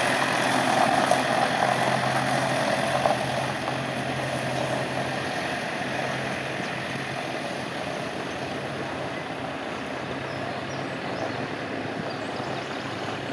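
Camper van engine running as the van drives slowly away across gravel. It is loudest in the first few seconds, then settles a little fainter.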